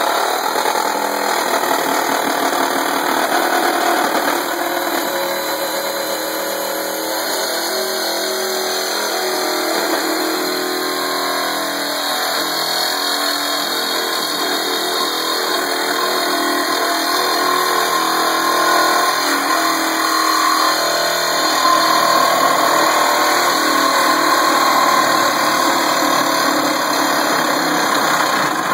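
Reciprocating saw running as its blade cuts through the end of a Jeep Wrangler bumper, the motor's pitch shifting as the cut goes on. It stops suddenly at the end.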